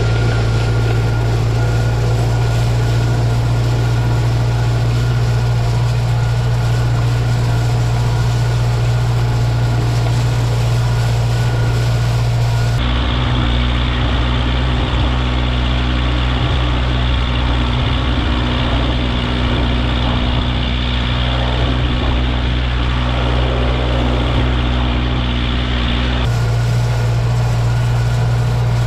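Tractor engine running steadily with a low drone. Its tone shifts abruptly about halfway through and shifts back near the end.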